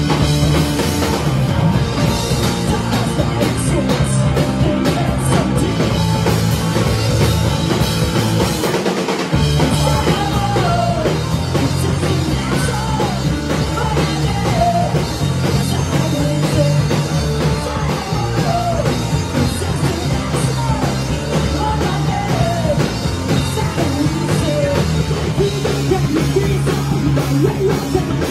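Live rock band playing loud: electric guitars and drum kit. The low end drops out briefly about nine seconds in, and a lead line of bending notes runs over the band from about ten seconds on.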